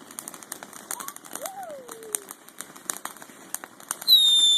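Ground fireworks crackling with rapid, scattered pops, and about four seconds in a loud, high whistle lasting about half a second, falling slightly in pitch.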